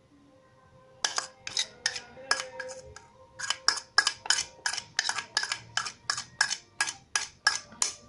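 Rapid, even clinking of loose birdseed being stirred in a steel bowl, about four knocks a second, starting about a second in.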